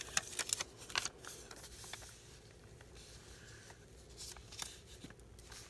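Paper being handled and shuffled: a quick run of rustles and light taps in the first second or so, then a few scattered soft clicks.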